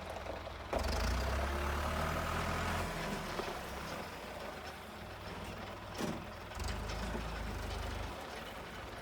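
Tractor engine running while it works the hay, a low rumble that grows louder about a second in and again near the end.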